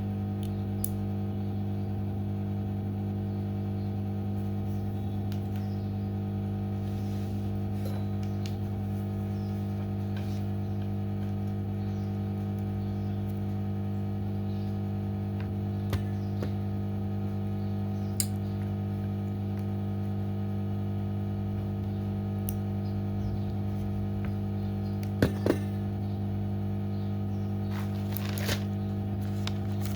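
Steady electrical mains hum from repair-bench equipment, with a few small clicks and taps near the middle and end as the phone and tools are handled.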